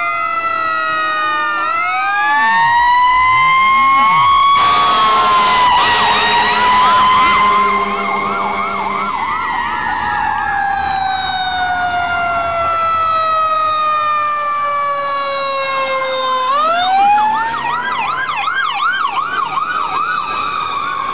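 Several fire department sirens sound together as the emergency vehicles pass. Long wails rise and fall, some dipping in pitch as a vehicle goes by, and fast yelping warbles come in about five seconds in and again near the end. There is a louder stretch, with a broad blast, between about three and eight seconds.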